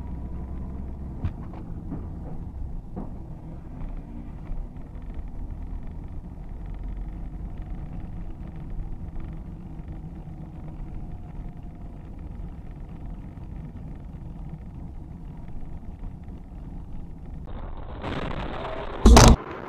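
Steady low rumble of a car's engine and tyres heard from inside the cabin through a dashcam. Near the end the road noise grows brighter and louder, then one very loud, short bang.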